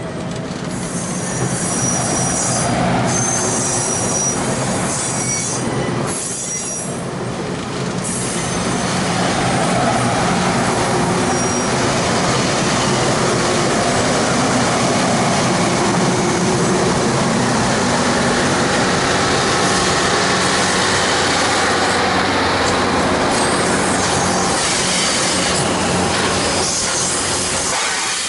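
Passenger cars rolling past at close range behind Nickel Plate Road 2-8-4 steam locomotive 765: a steady rumble of wheels on rail with squealing flanges, growing louder about nine seconds in. Near the end the locomotive itself draws level.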